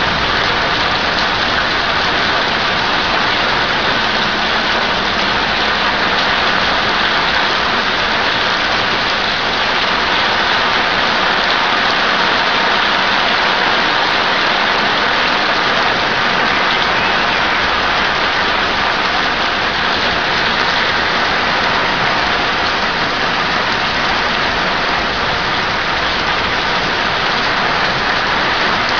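Heavy thunderstorm rain pouring down onto a flooded street and yard, a loud, steady hiss of rain with no let-up.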